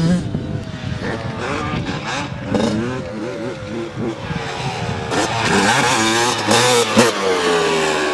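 Motocross dirt bikes running on the track, their engines revving up and down with gear changes. The engines get louder about five seconds in, and one engine's pitch falls near the end.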